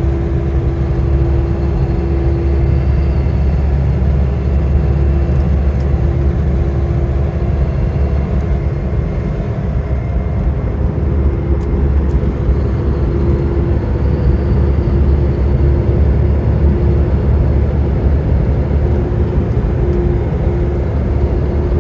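Steady road and engine noise inside a pickup truck's cab while driving, with a constant low drone.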